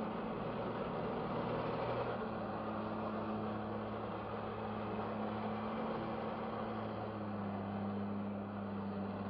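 Jet ski engine running steadily under throttle, driving the water jets of a flyboard through its hose; the engine note shifts slightly about two seconds in.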